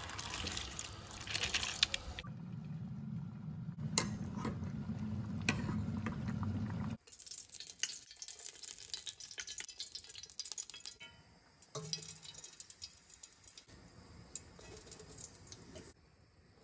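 Soaked lentils poured from a plastic bowl into a pot of boiling water with a splashing hiss, then the water bubbling with a low rumble. After a cut about seven seconds in, a quieter light hiss with scattered small clinks from oil in a steel pot.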